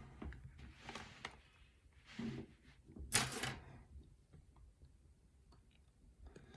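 Small metallic clicks and rustles of a pin-tumbler challenge lock and its key being handled, with a few soft scrapes in the first half and little after.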